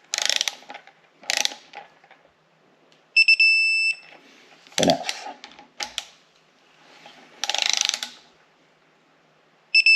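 A ratchet wrench clicking in several short strokes as cylinder head bolts are tightened to torque. A high electronic beep sounds twice, a little after three seconds in and again near the end.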